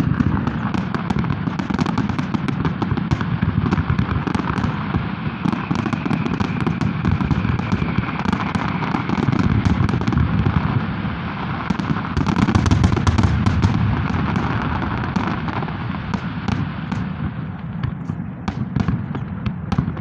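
Fireworks salute: a dense, continuous barrage of overlapping bangs and crackling bursts, loudest about twelve to fourteen seconds in, thinning to separate sharp cracks near the end.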